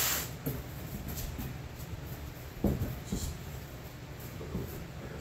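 Cardboard shipping boxes being handled: a brief rustle and scrape of cardboard at the start, then a quiet room with a couple of faint knocks.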